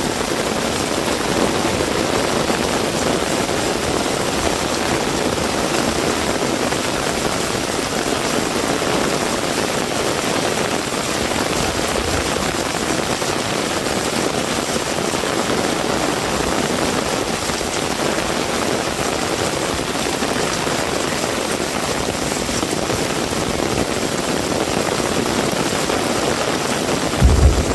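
Heavy rain falling steadily, an even hiss of rainfall. Near the end comes a brief low thump.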